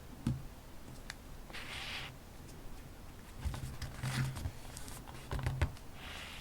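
Paper and stationery being handled on a desk: a light knock near the start, a brief paper rustle or slide about a second and a half in, then a run of small taps and soft thumps from about three and a half seconds.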